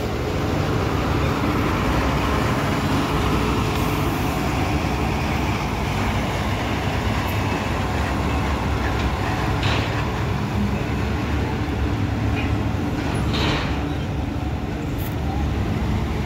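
Road traffic: the engines of a queue of trucks and cars running, with a truck engine moving past close by. It is a steady low rumble, broken by two short hissing bursts about ten and thirteen seconds in.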